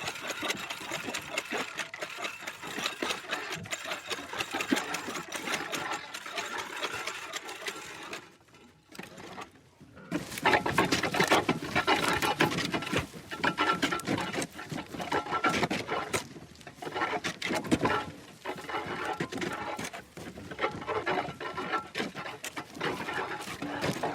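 Creaky old wheel turning, a rapid run of creaks and clicks. It almost stops about a third of the way in, then turns again louder, with a recurring high squeak.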